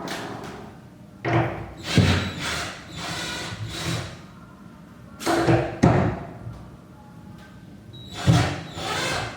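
A series of sharp thumps and knocks, several of them a few seconds apart and some in quick pairs.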